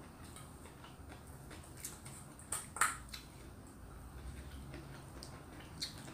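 Eating by hand from a stainless steel bowl: scattered soft clicks and ticks of fingers against the metal bowl, mixed with the mouth sounds of chewing, the sharpest click about three seconds in.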